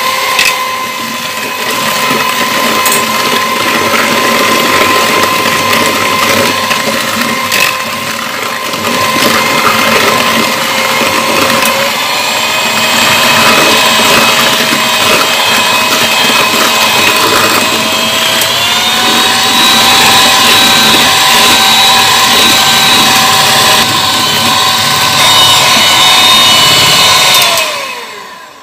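Electric hand mixer beating eggs and sugar in a bowl, its motor whining steadily. The pitch steps up twice, about twelve and eighteen seconds in, as the mixer is switched from low to medium to high speed, and it winds down near the end as it is switched off.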